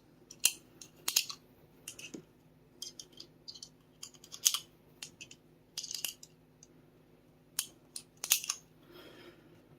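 9mm snap caps being pressed one at a time into a Sig Sauer P365 magazine: a series of irregular, sharp small clicks and clacks of the dummy rounds and the magazine being handled.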